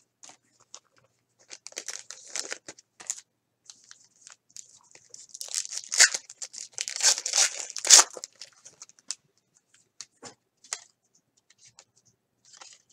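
A 2010 Bowman baseball card pack's wrapper being torn open and crinkled by hand. There are light rustles at first, then a few seconds of loud tearing and crinkling about halfway through, then scattered soft rustles and clicks of cards being handled.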